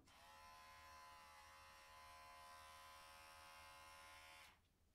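Electric pet hair clipper switched on, its buzz rising briefly as it comes up to speed, then running steadily before cutting off about four and a half seconds in.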